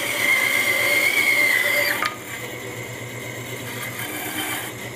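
Bandsaw blade cutting through the end of a turned wooden mallet head, a steady high whine over the saw's motor hum. About two seconds in the cut goes through with a click and the saw runs on freely, quieter.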